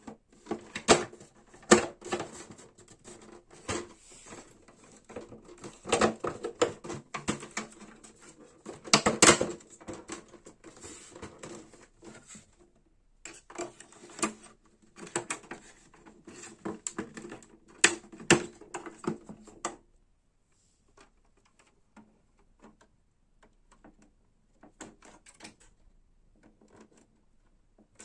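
Rapid, irregular clicks and knocks of plastic printer parts being handled, stopping about twenty seconds in; after that there are only a few faint clicks.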